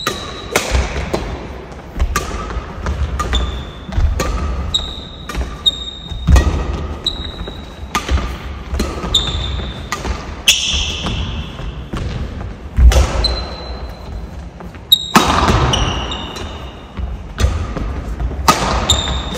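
Badminton rally: sharp racket hits on the shuttlecock about once a second, short high squeaks of court shoes on the floor, and thuds of footwork.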